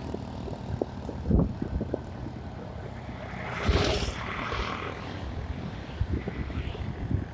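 Wind buffeting the microphone over the low rumble of a moving vehicle, with irregular thumps and one louder rushing burst about four seconds in.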